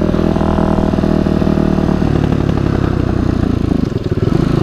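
KTM XC-F 250 dirt bike's single-cylinder four-stroke engine running. About two seconds in, its steady note breaks into an uneven, stuttering beat. This is the burping, nasty low-rev running of an idle and fuel-delivery fault.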